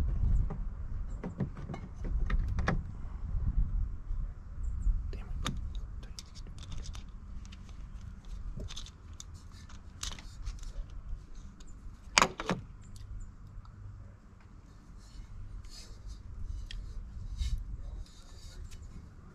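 Scattered clicks and clinks of metal intake parts and hand tools being handled and fitted in a car's engine bay, with one sharp, louder click about twelve seconds in, over a low rumble.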